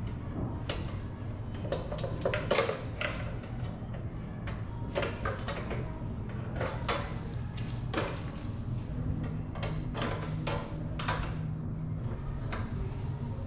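Plastic wiring-harness clips being pried and popped off a bumper with needle-nose pliers: a run of irregular clicks and rattles over a steady low hum.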